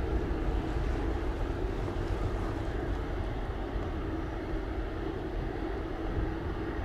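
Distant twin-engine jet airliner's engines at takeoff thrust during its takeoff roll and lift-off, a steady rumble.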